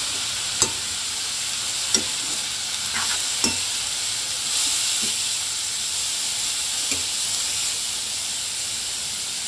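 Sliced kakrol (spiny gourd) sizzling steadily in oil in a metal pan while being stirred. A metal spatula knocks against the pan a few times.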